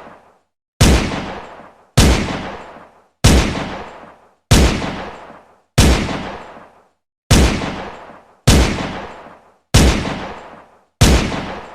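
Glock pistol firing single shots, about one every second and a quarter, nine in all, each ringing out with a tail that fades over about a second.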